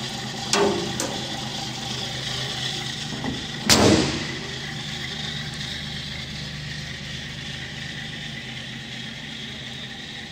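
1947 Armstrong Siddeley Lancaster's straight-six engine idling steadily. Two light knocks in the first second and one loud thump about four seconds in.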